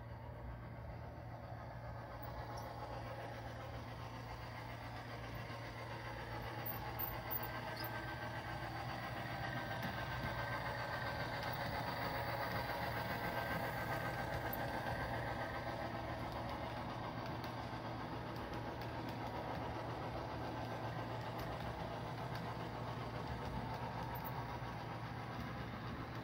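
Model train running past: the locomotive's motor and the wheels rolling on the track, growing louder to a peak about halfway through and easing off afterwards, over a steady low hum.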